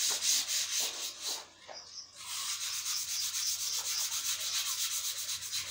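Sandpaper rubbed by hand back and forth along a wooden board, a quick, even run of hissing strokes with a short pause about a second and a half in. This is the final hand sanding of a board to smoothness.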